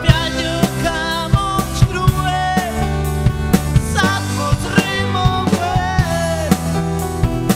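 Live band playing a rock song: a drum kit keeps a steady beat under electric guitars and bass, with a lead melody line wavering in vibrato above.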